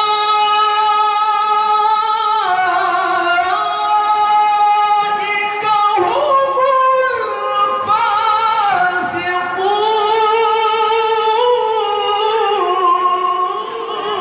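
A male qari's melodic Quran recitation (tilawah) into a handheld microphone. A single high voice holds long, ornamented notes that step and slide between pitches, with short breaths between phrases.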